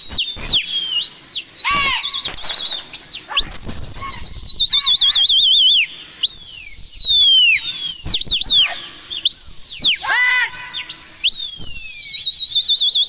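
Loud, piercing human whistling, a pigeon keeper whistling at his flock in flight. The whistles repeat, swooping sharply up and down, and some hold with a fast warbling trill.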